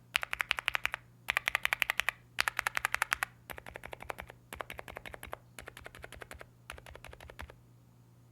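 Gateron mechanical keyboard switches under keycaps being pressed rapidly in bursts of about a second, roughly ten clacks a second. About halfway through, the bursts turn quieter and duller, and the typing stops just before the end.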